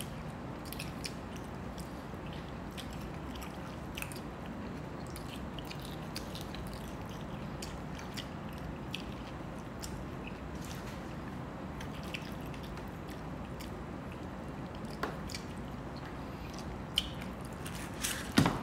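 People chewing rice and fish, with soft wet mouth clicks and smacks scattered throughout, over a steady low background hum.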